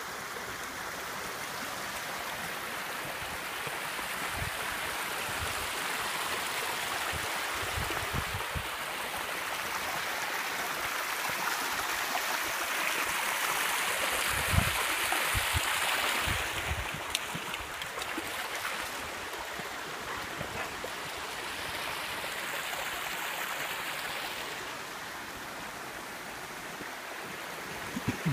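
Flowing stream water, a steady rush that swells for a few seconds in the middle, with scattered low thumps.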